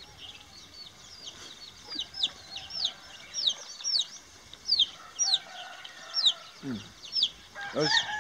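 Outdoor birdsong: a steady string of short, high, falling chirps, about two or three a second. Near the end comes a lower, drawn-out chicken call.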